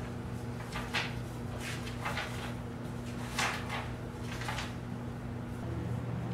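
Paper pages of a notebook being turned by hand, four short rustles about a second apart, over a steady low hum.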